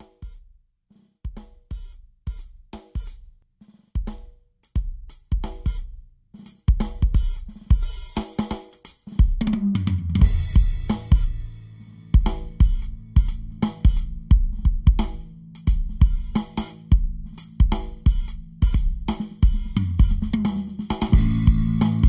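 Music with a drum kit: sparse drum hits at first, building into a steady beat with hi-hat and cymbals, and a bass line joining about halfway through.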